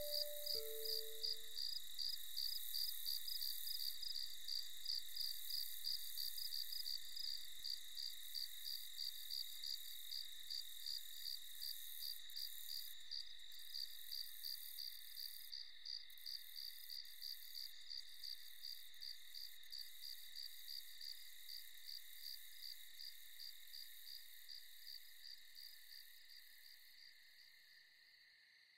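Night-time crickets chirping in an even, rapid pulse over a steady high insect hum, fading out over the last few seconds.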